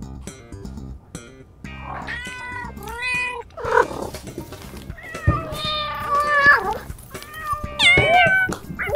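A string of drawn-out meows, rising and falling in pitch, coming thicker and louder from about two seconds in, over background music.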